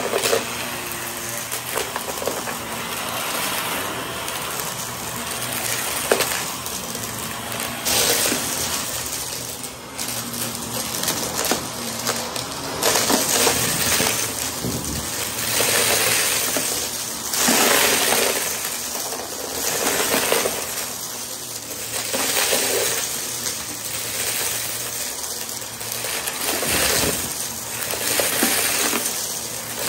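Upright vacuum cleaner running over a thick shag rug, sucking up a dry crunchy debris mix that crackles and rattles as it goes through the head. The sound swells every two to three seconds with each forward pass of the head.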